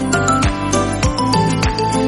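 Background music: an instrumental track with a steady beat and melodic notes.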